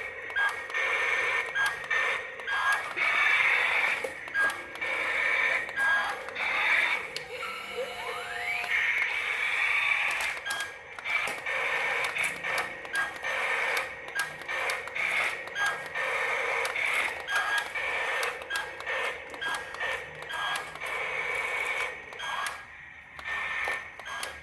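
Tinny background music with many short clicks and a rising glide about eight seconds in.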